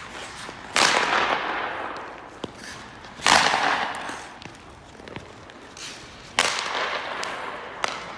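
Three loud cracks of ice hockey shots, stick on puck and puck on the boards, about two and a half seconds apart, each echoing for a second or more around the near-empty rink. Lighter clicks of stick and puck come between them.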